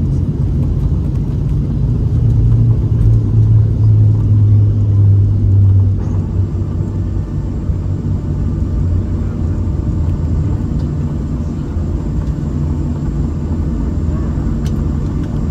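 Cabin noise inside a Boeing 737-700 rolling on the ground after landing: the steady low rumble of its CFM56 engines at low power and the wheels on the pavement. About two seconds in the rumble swells for a few seconds, then settles.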